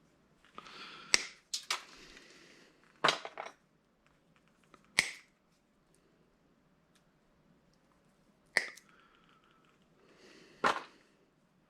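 Irregular sharp clicks and clanks of hard objects being handled, about seven over the span, some with a short rattle after them.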